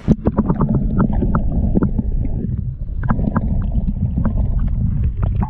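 Stream water heard with the microphone underwater: a loud, muffled low rumble with many short clicks and knocks, starting suddenly as the camera goes under.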